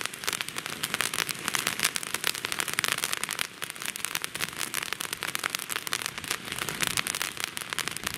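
Jorge Vulkan JF16 firework fountain burning, its spray of sparks giving a dense, rapid crackling over a steady hiss.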